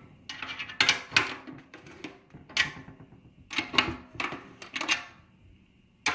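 Drum key and snare drum hoop hardware clicking and rattling as the key is worked on the tension rods: a string of irregular sharp metallic clicks and clatters.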